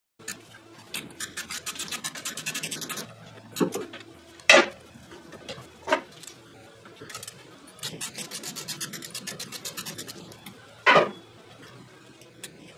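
Metal rasping and rapid clicking from hand work at a truck's rear disc brake rotor and its parking-brake hardware, in two runs of about two seconds each, with several sharper metal knocks in between.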